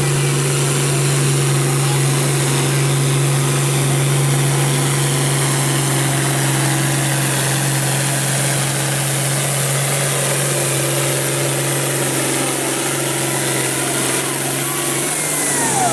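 International Harvester farm tractor's diesel engine running hard at a steady, unchanging pitch while pulling a weight-transfer sled. It drops in pitch near the end as the throttle comes off.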